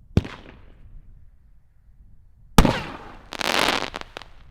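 Single-shot aerial firework shell: a sharp launch crack, then about two and a half seconds later the shell bursts with a loud bang, followed by about a second of crackling hiss.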